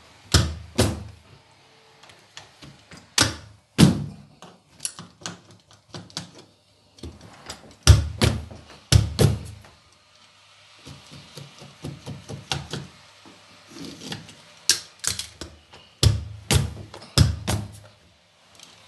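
Carpet knee kicker being bumped repeatedly, a string of irregular thudding knocks, some in quick pairs, as the carpet is stretched onto the gripper strips.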